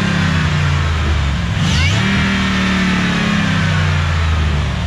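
Pickup truck engine running just after a hard cold start on jumper cables, revved up and let back down twice.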